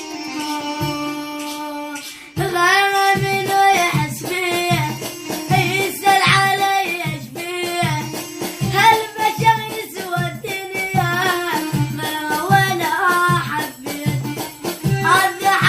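Iraqi popular song: about two seconds of held instrumental notes, then a singer comes in with ornamented, wavering vocal lines over a steady drum beat.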